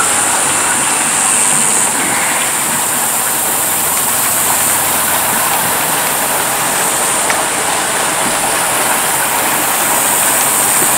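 A small boat's motor running steadily under way, with water rushing along the hull: a constant, unbroken noise with a high steady hiss.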